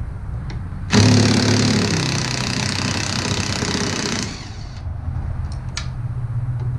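Cordless impact wrench hammering on the seized nut of a snowmobile's front shock and trailing-arm bolt for about three and a half seconds, starting about a second in, then stopping; the nut is breaking loose.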